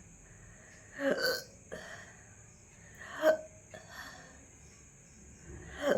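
A person hiccuping three times, about two seconds apart, each one short and sudden.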